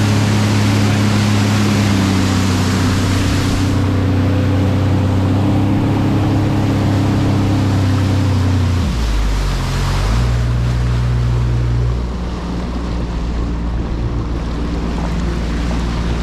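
Personal watercraft engine running steadily at speed, with the jet's water rushing and wind noise. About nine seconds in the throttle is cut and the engine drops to a lower, steady idle as the craft slows.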